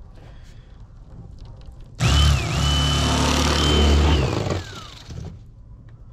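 Electric fillet knife switched on about two seconds in, its motor running with a steady high whine as the serrated blades saw through a striped bass fillet. After about two seconds it is released and winds down with a falling whine.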